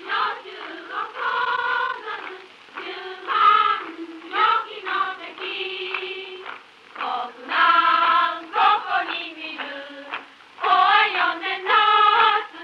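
A group of young women singing together, a rousing song about the Mongol attempt to invade Japan, on a 1944 film soundtrack with little bass or treble.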